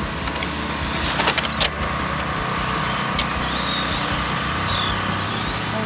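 Several electric 1/10 RC touring cars racing past, their motors whining and sweeping up and down in pitch as they speed up and slow for corners. A few sharp clicks come between one and two seconds in.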